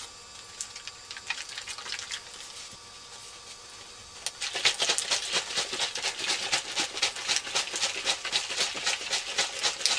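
Tinning solution being poured into a plastic tray: faint handling noise, then from about four seconds in a rapid, irregular patter of liquid splashing.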